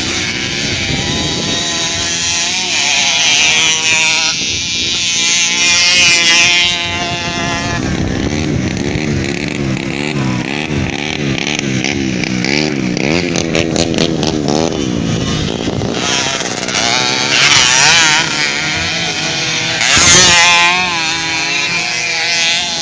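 Dirt-bike motorcycle engines revving hard, their pitch rising and falling repeatedly as the bikes accelerate and back off, with more than one engine heard at once at times.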